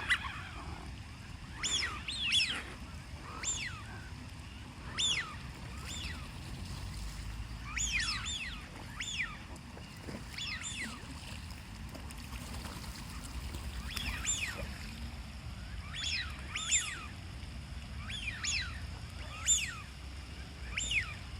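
Ducks calling: short, high-pitched calls repeated every second or so, often in quick pairs, over a faint low rumble.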